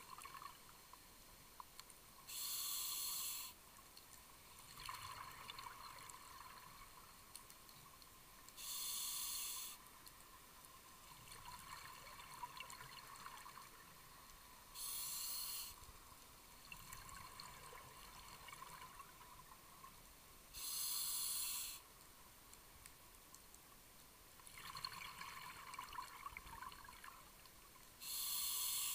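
Scuba diver breathing through an open-circuit regulator underwater, five breaths about six seconds apart: each a short, loud hiss of inhalation followed by a couple of seconds of crackling exhaust bubbles.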